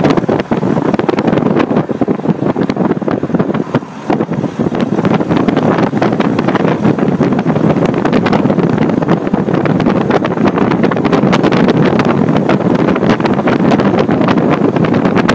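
Tyre and road noise from a moving Mitsubishi Delica D5, heard through heavy wind buffeting on a microphone mounted low beside the wheel: a loud, steady rush with fine crackles from the rough asphalt, dipping briefly about four seconds in.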